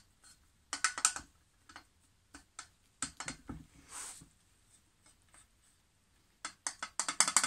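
Metal clicks and light knocks as the jaw of a square-stock twister and a steel square bar are worked by hand, with a quick run of clicks near the end.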